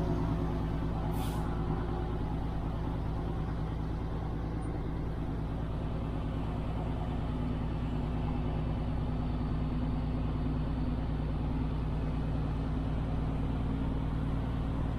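Kenworth W900 semi truck's diesel engine running steadily at low speed, with a short hiss of air about a second in.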